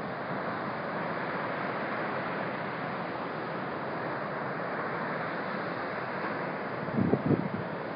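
Ocean surf breaking on a sandy beach, a steady rushing wash. A stiff wind buffets the phone's microphone, with a few strong gusts about seven seconds in.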